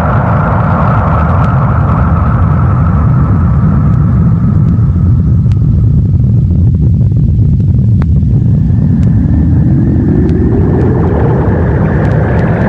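Loud, continuous deep rumble of an anime energy-blast sound effect, with a rising tone coming in about two-thirds of the way through.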